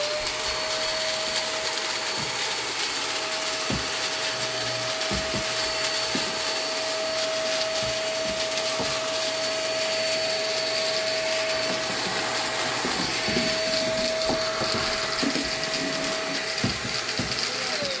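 iwoly V600 corded stick vacuum running at full suction on spider webs: a steady motor whine over rushing air, with a few light knocks. It spins down with a falling whine right at the end.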